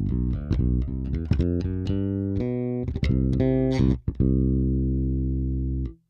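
Aquilina Sirius 4 active four-string electric bass, with Delano pickups and a Taurus preamp, played solo with a clean tone. A fast run of notes ends on one long held note, which cuts off suddenly just before the end.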